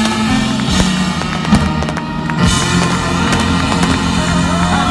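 Live ska band with an orchestra playing loudly, a steady band sound with sharp hits cutting through it every second or so.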